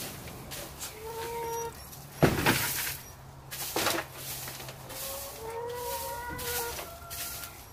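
Broom sweeping dry straw on a chicken-house floor into a plastic dustpan: scratchy brushing strokes, the loudest about two seconds in and another near four seconds. Short steady-pitched animal calls sound about a second in and again from about five to seven seconds.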